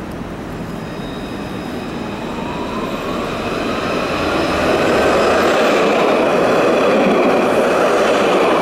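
Alstom Citadis tram approaching and passing close by on street track. The running noise of wheels on rails grows steadily louder and is loudest as the tram goes past. Over it a high whine rises in pitch during the first few seconds.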